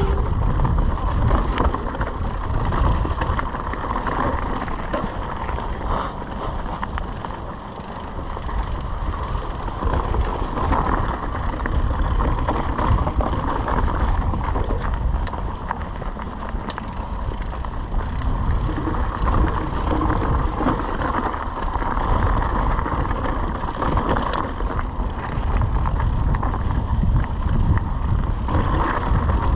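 Mountain bike riding fast down a dry, rocky dirt singletrack: tyres on loose dirt and stones, and the bike rattling over bumps in a steady stream of small clicks. A constant low rumble of wind on the microphone runs beneath it.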